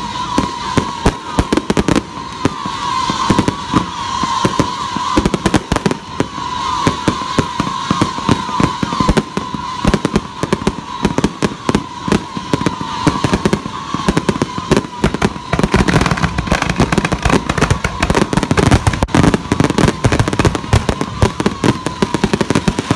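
Aerial fireworks bursting overhead: a dense run of bangs and crackles with no letup, and a steady high whistle running through it.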